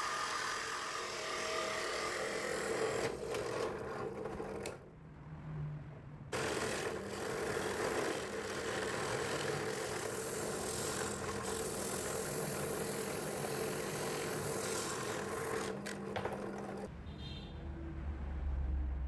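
Homemade belt-driven drum sander running, its motor and sanding drum giving a steady whir with a constant hum. It cuts out for about a second and a half around five seconds in, comes back suddenly, and drops to a low rumble near the end.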